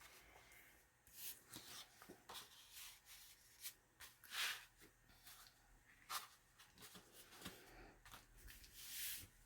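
Faint, scattered rustling and sliding of paper as the cut-out floral paper image and journal pages are handled and positioned, with a few soft brushes spread over several seconds.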